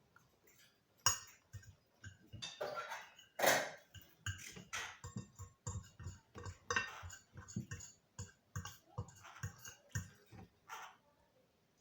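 Cutlery clinking and scraping against a plate while eating. It comes as a run of short, irregular knocks, the loudest about three and a half seconds in.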